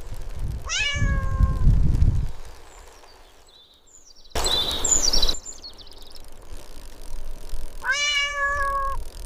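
A cat meowing twice: a drawn-out meow about a second in and another near the end, each sliding slightly down in pitch. A brief burst of noise about halfway through lies between them.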